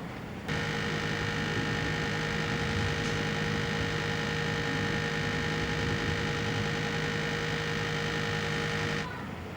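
Air-conditioner outdoor unit running: a steady machine hum with several fixed tones from the compressor and fan motor. It starts abruptly about half a second in and cuts off abruptly near the end.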